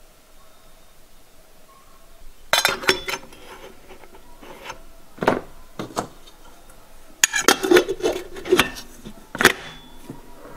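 Stainless steel stovetop coffee percolator being assembled, its metal basket, spreader cover and lid clinking and clattering into place. Quiet for the first couple of seconds, then a run of metal clinks, with a denser cluster of clatter about seven seconds in.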